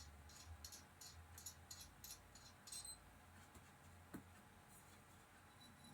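Faint, light clicks and rattles from small parts of a ceiling light fixture being handled and unscrewed. The clicks come quickly, about three or four a second, then stop at about three seconds, with one more click about four seconds in.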